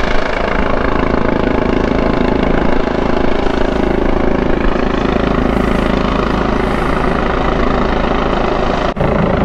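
Police helicopter hovering, its rotor and engine making a steady, loud drone, with a very brief dropout near the end.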